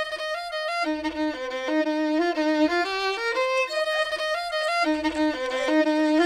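Background music: a fiddle playing a quick melody of short, stepping notes.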